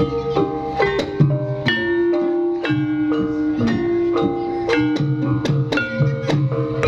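Javanese gamelan ensemble playing a Banyumasan piece. Struck bronze metallophone keys ring out in a steady run of melodic notes, about two to three strikes a second.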